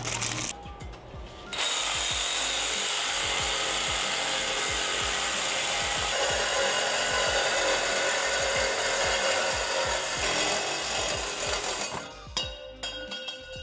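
Cordless reciprocating saw cutting through a steel exhaust tailpipe. The saw starts about a second and a half in, runs steadily for about ten seconds, and stops near the end.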